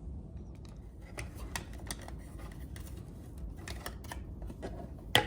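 Light clicks and taps of a keypad door lock's parts being handled, with one sharp, louder click near the end.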